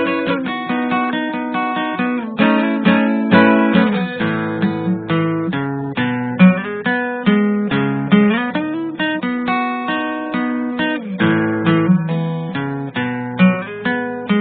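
Background music: acoustic guitar played with quick plucked and strummed notes.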